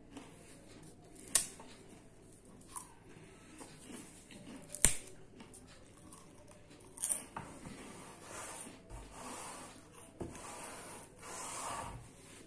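Puffed rice cake being broken and crumbled between the fingers: faint rubbing and crackling with a few sharp snaps, the loudest about five seconds in, and a longer rustle near the end.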